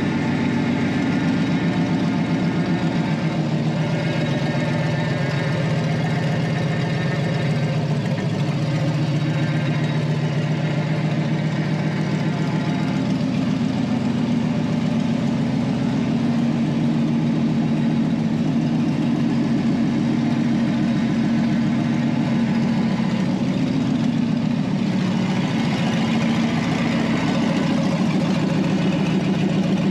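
The cab-over truck's swapped-in V8 idling steadily while the newly plumbed power steering is turned left and right.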